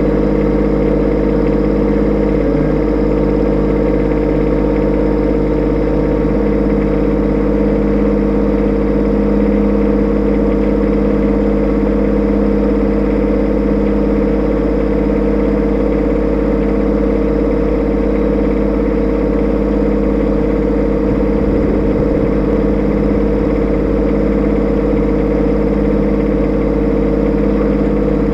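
Kubota B2601 compact tractor's three-cylinder diesel engine idling steadily.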